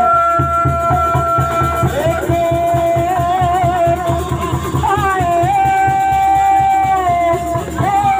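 Sundanese benjang music: a tarompet (reed shawm) plays long, wavering held notes over steady drumming, and the melody slides up to a higher note about five seconds in.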